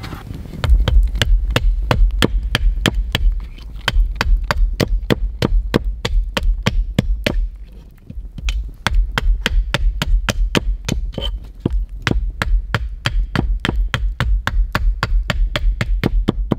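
Hatchet chopping a small piece of wood against a wooden stump chopping block to shape a handle: quick repeated strokes, about three or four a second, each landing with a sharp knock and a dull thud, easing off briefly twice.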